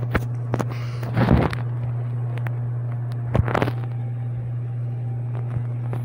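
A steady low hum, with a few faint clicks and two short bursts of noise, one about a second in and another past three seconds.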